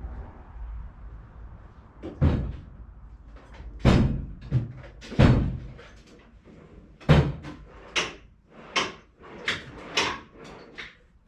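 Metal hand tools knocking and clanking on the engine as cylinder head bolts are worked loose by hand: about ten sharp, irregular clanks, the loudest about two, four, five and seven seconds in.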